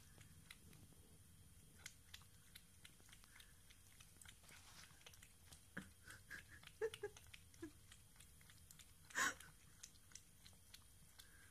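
Siamese cat lapping water: faint, irregular little clicks, with one louder short noise about nine seconds in.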